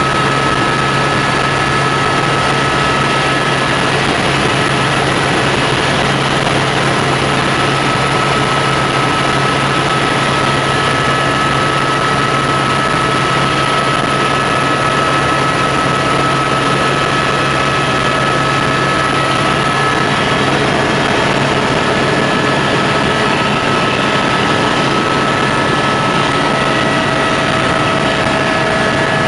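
Helicopter in flight: steady, loud engine and rotor noise with a low hum and a thin, steady high whine.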